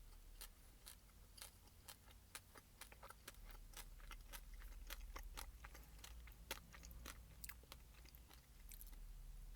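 Faint close-up chewing of a dried fig, with many small irregular crunchy clicks from its seeds.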